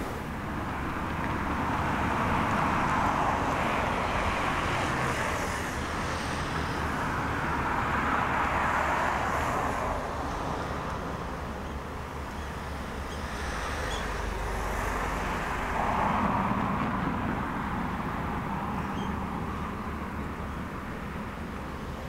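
Road traffic: passing vehicles swell and fade about three times over a steady low rumble.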